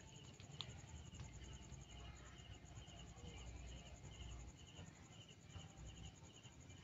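Faint night-time crickets chirping, a short high chirp repeating about two to three times a second.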